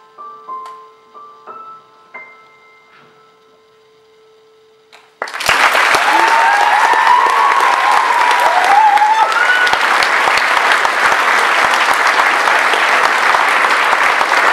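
Piano playing a few soft, sparse closing notes that fade away; about five seconds in, the audience breaks into loud applause with cheering that keeps going.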